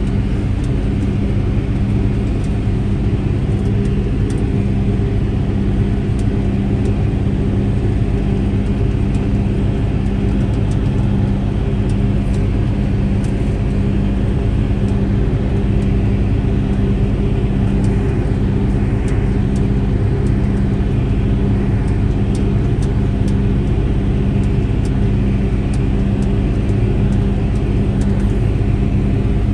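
John Deere tractor engine running at a steady speed under load while mowing hay, heard from inside the cab as an even, unbroken drone.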